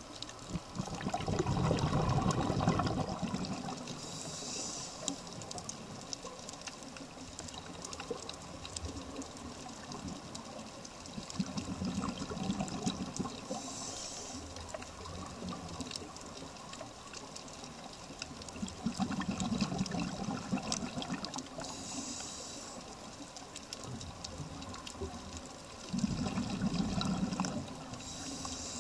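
Scuba diver breathing through a regulator underwater: four bubbling exhalations, each followed a second or two later by a short hissing inhale, about one breath every eight seconds.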